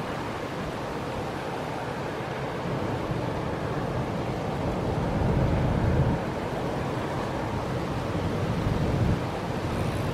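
Wind buffeting the microphone over choppy harbour water, a steady rushing noise with stronger low gusts about five to six seconds in and again near nine seconds.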